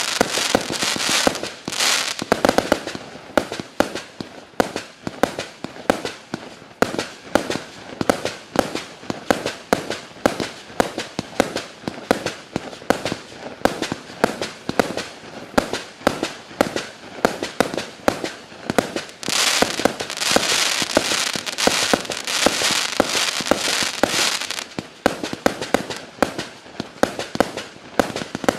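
A 200-shot, 20 mm calibre firework cake firing a rapid run of shots, several a second, each launch followed by its star burst. From about 19 to 24 seconds in, the shots merge into a dense, unbroken crackle of glittering stars before the separate reports return.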